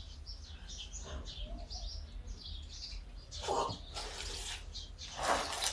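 Small birds chirping repeatedly in quick short notes, with two brief rushes of noise about three and a half seconds in and near the end, the second the loudest.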